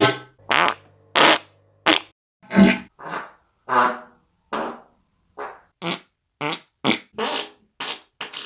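A rapid string of short fart sounds, about two a second, each a brief pitched burst with silence between.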